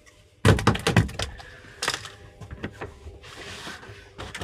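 A freshly caught red sea bream dropped onto the boat's deck and flapping there: a sudden knock, then a quick run of sharp slaps and clicks, another slap a little later and more flapping near the end.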